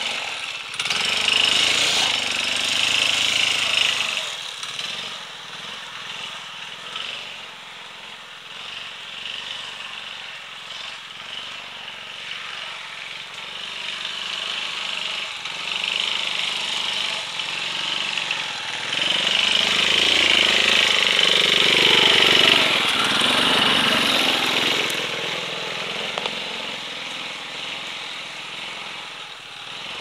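Small engine of a large off-road motor scooter running as it is ridden over rough ground, its revs rising and falling. It is loudest about a second in and again around twenty seconds in as the scooter comes close, and quieter between as it moves off.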